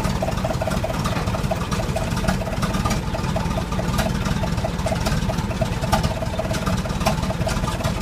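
1918 Mack ACCD tractor's four-cylinder engine running as it pulls the aerial ladder trailer along at low speed: a steady low rumble with a rapid, even ticking over it.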